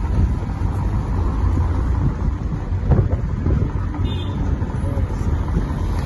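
Wind buffeting the microphone from riding in an open taxi, over the taxi's engine and road noise. The result is a steady, gusty rumble.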